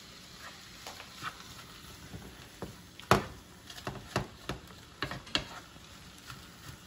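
Cauliflower rice frying in oil in a pan, with a faint sizzle under scattered clicks and knocks of a utensil stirring it; the loudest knock comes about three seconds in.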